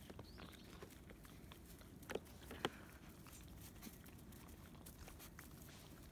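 Labrador puppies eating from plastic bowls set in a cardboard divider: faint, scattered clicks and crunches, with two sharper clicks a little over two seconds in.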